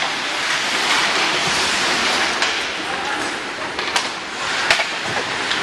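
Ice hockey game noise: skates scraping and carving on the ice in a steady hiss, with sharp knocks of sticks and puck about four seconds in and again a little later.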